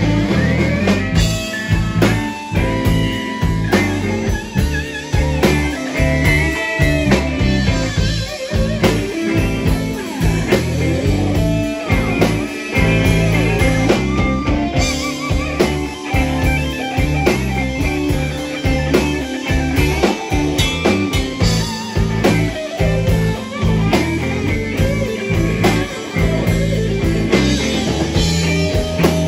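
Live rock-blues band playing loudly: distorted electric guitars, bass guitar and a drum kit keeping a steady beat.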